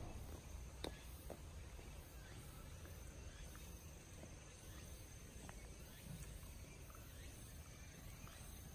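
Faint outdoor ambience: a low rumble and a faint steady high tone, with a few soft clicks, the first about a second in.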